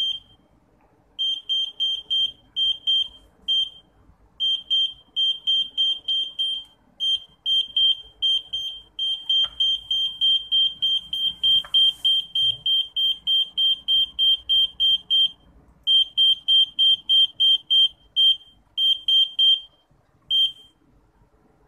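Piezo buzzer of an Arduino ultrasonic parking sensor beeping at one high pitch, about five short beeps a second in runs with brief pauses: the too-close warning that the vehicle is near the sensor. The beeping stops near the end.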